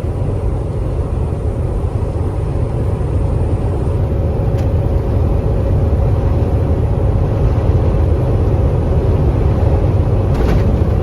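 Inside the cab of a KAMAZ 4308 truck driving in fifth gear into a strong wind: a steady, loud low drone of the diesel engine working under load, mixed with wind and road noise. A faint click comes about four and a half seconds in, and a brief rattle near the end.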